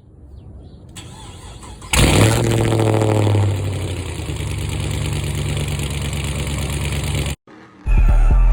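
A V8 engine, in a video about a GMC Yukon Denali, is started: after a brief quieter lead-in it catches about two seconds in, flares up for a moment and then settles to a steady idle. The sound cuts off abruptly, and music with a heavy bass beat starts near the end.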